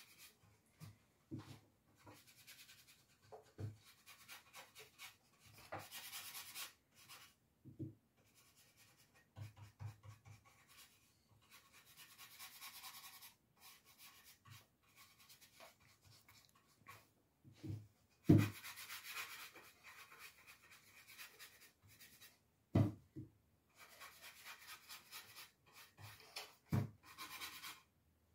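Round wax brush scrubbing dark brown wax into wooden boards, in spells of quick back-and-forth strokes with short pauses between them. A few short knocks stand out, the loudest just past the middle.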